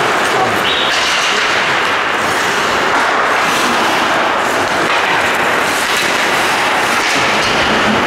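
Steady noisy din of an ice hockey game in a rink, with faint knocks and scrapes over it.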